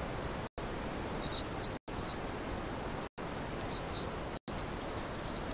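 Hedgehogs squeaking: short, high-pitched chirps in two clusters, about a second in and again near four seconds, over a steady hiss.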